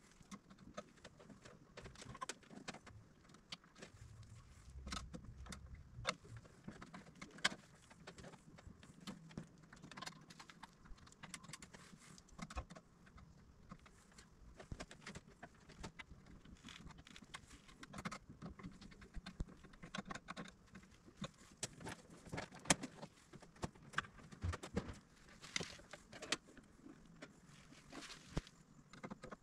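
Scattered small clicks and taps of hand tools and stripped wires being worked in a metal electrical panel as the wires are landed on breaker terminals.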